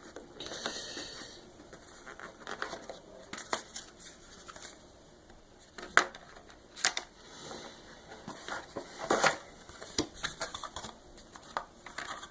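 Phone box packaging being handled: scattered sharp clicks and taps of cardboard and inserts, with short rustles and scrapes as the contents are lifted out.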